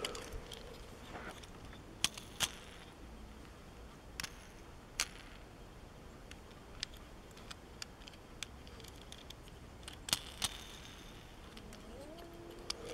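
Scattered faint clicks and crackles of a Hot Wheels blister pack being torn open and the small die-cast Batmobile being handled. The sharper clicks come about two seconds in and again about ten seconds in.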